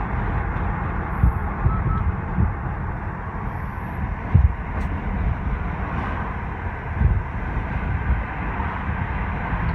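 Steady low road and engine rumble heard from inside a moving car, with a couple of brief thumps.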